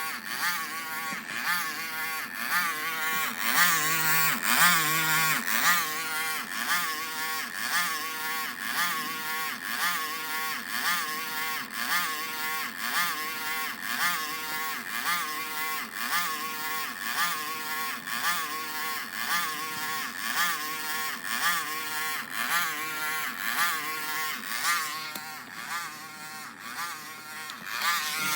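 A 2008 MacBook Pro giving off a weird "demonic" warbling, pulsing drone that repeats about one and a half times a second, then cuts off suddenly near the end.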